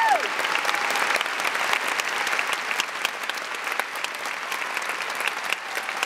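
Audience applause: many hands clapping in a dense, steady patter that slowly eases off.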